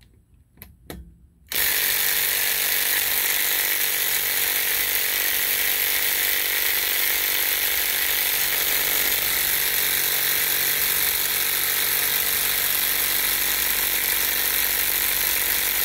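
Ryobi P235 brushed impact driver hammering non-stop on a lug nut through a half-inch impact socket. It starts suddenly about a second and a half in, runs steadily for about fourteen seconds and cuts off near the end. The nut does not break loose.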